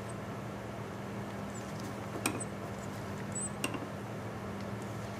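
A tap cutting threads into an antique Maytag engine's carburetor cap in a lathe chuck: faint high squeaks and two sharp clicks about a second and a half apart, over a steady low hum.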